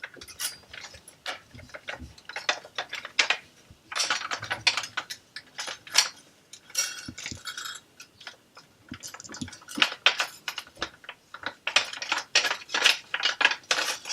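Kitchen utensils clattering: an irregular run of clicks, knocks and clinks as someone rummages for a spatula.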